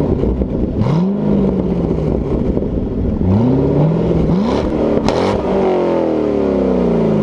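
Chevrolet Corvette V8 exhaust, revved several times, the pitch climbing and holding each time. Near the end the revs wind slowly down.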